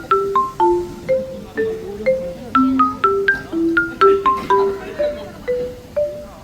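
Background music: a bouncy melody of short struck notes over a lower bass line, at a steady pace of about two to three notes a second.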